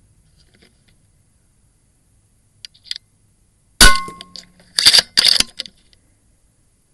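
Single shot from a moderated .30-calibre FX Dynamic Express PCP air rifle: one sharp crack with a brief metallic ring, about four seconds in. About a second later come two loud, rough bursts of noise as the herd of feral hogs scatters.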